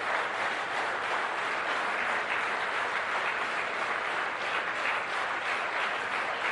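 A large seated audience applauding steadily, a dense even clatter of many hands clapping.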